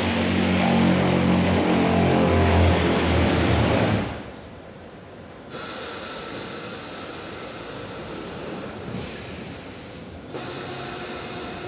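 Mexico City Metro Line 4 rubber-tyred train's running sound, the rain-like hiss known as 'marcha tipo lluvia', over a low hum for about the first four seconds. The sound then drops sharply and comes back about a second later as a quieter hiss with faint steady whines, swelling slightly again near the end.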